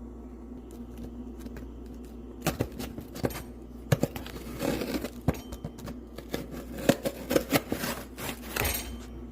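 A package being opened by hand: crinkling and tearing of packaging with scattered clicks, starting about two and a half seconds in, over a low steady hum.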